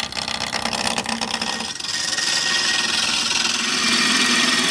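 Wood lathe spinning a blank while a hand-held turning tool cuts into the wood, a steady hiss of shavings being sheared off over the lathe's hum. The cut gets louder and steadier about two seconds in.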